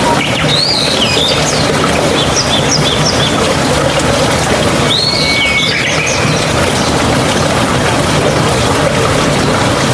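Steady rush of flowing water, with a small bird calling in short chirps a few times over it, near the start, about two and a half seconds in, and again around five seconds in.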